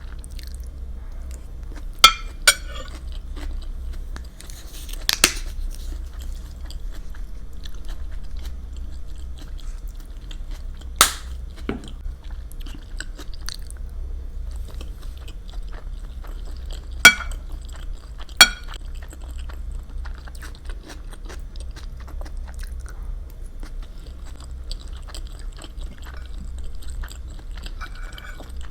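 Close-miked chewing and eating, with fine wet crackle throughout and about six sharp clicks scattered through, the loudest about two-thirds of the way in.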